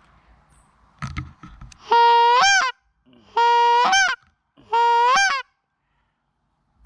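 A hand-held goose call blown three times, each a long, loud honk held on one pitch that breaks upward at the end, about a second and a half apart. A few knocks just before the first honk.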